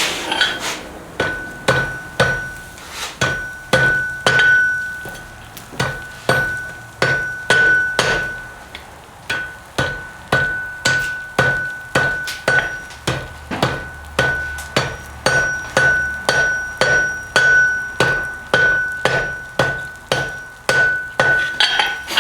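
Blacksmith's hand hammer striking steel on an anvil, about two blows a second in runs with short pauses, the anvil ringing with a steady high tone between blows.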